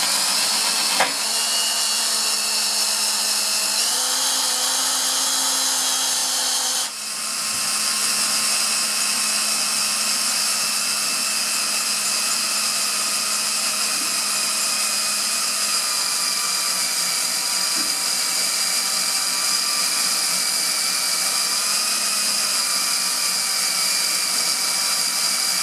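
Cordless DeWalt drill running steadily while a diamond bit grinds a hole through ceramic wall tile. The drill's whine steps up in pitch about four seconds in and dips briefly near seven seconds.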